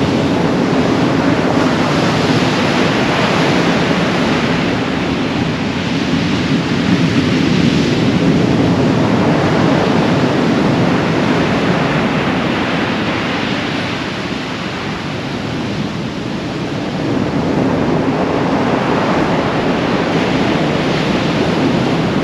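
Large waves breaking and surf rushing up the beach, mixed with gale-force wind buffeting the microphone: a steady roar that eases for a few seconds past the middle.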